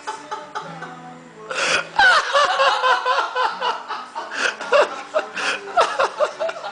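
People giggling and laughing, held back and in quick bursts, starting about one and a half seconds in, over background music.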